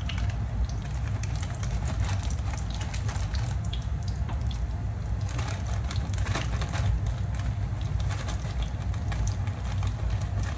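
Food frying in hot oil in a frying pan: a steady sizzle with many small crackling pops, over a low steady rumble.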